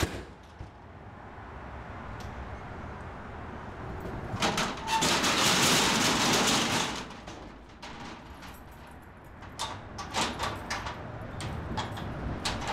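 A door shuts with a sharp click at the start. About four seconds in, a metal roll-up security shutter rattles loudly for some three seconds as it is moved by hand, followed by a few sharp metallic clicks.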